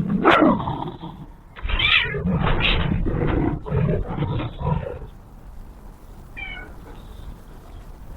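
Animal cries in a run of loud calls for about five seconds, beginning with one falling cry, then quieter, with one short call about six and a half seconds in.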